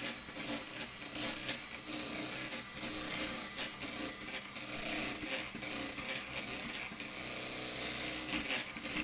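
Electric hand mixer running steadily, its beaters working egg yolks into whipped egg whites and sugar in a glass bowl.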